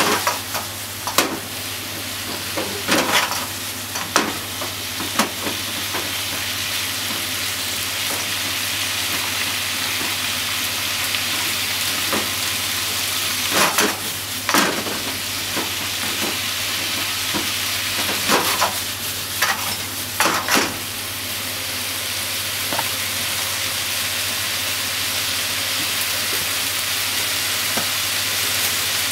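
Sliced pork, carrot, green pepper and onion sizzling steadily in a frying pan, stirred and tossed with wooden chopsticks: clusters of clattering and scraping come in the first few seconds, around halfway and again a little later, after which only the sizzle goes on.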